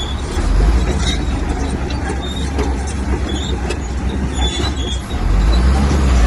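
Komatsu bulldozer's diesel engine running with a deep rumble that grows louder about half a second in and again near the end as it works. Short high squeals from the steel tracks come through the rumble.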